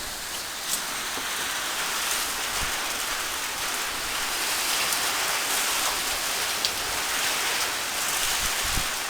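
Steady rain falling, with a couple of faint sharp ticks.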